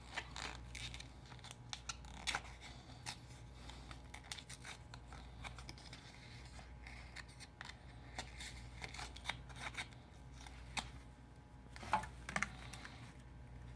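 Business card scraping and clicking as it is worked back and forth under a Samsung Galaxy S6's display, slicing through the screen adhesive, with irregular short crackles over a low steady hum.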